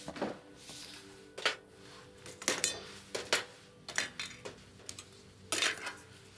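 Metal surgical instruments and syringes clinking and clicking against a steel instrument tray: a dozen or so sharp clinks spread through, some ringing briefly. A faint steady low hum runs underneath.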